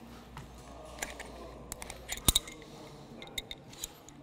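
Rope being worked through a descender and metal rope-access hardware handled on a harness, giving scattered sharp metallic clicks and clinks. The loudest click comes a little past two seconds in, with lighter ones around it and a few more near the end.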